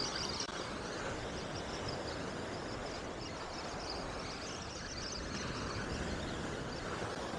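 Steady wind buffeting the microphone, mixed with surf washing onto the beach.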